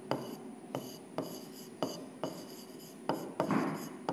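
A stylus writing on the screen of an interactive display board: sharp taps about twice a second as strokes and characters are put down, with a longer scratching stroke near the end.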